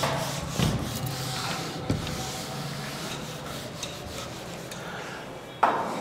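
A duster rubbing across a whiteboard in back-and-forth wiping strokes, erasing the writing, with a couple of light knocks; the sharpest knock comes near the end.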